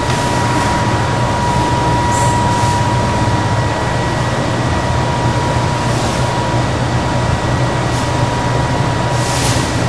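Steady background hum and hiss with a thin, steady high tone that grows fainter about halfway through.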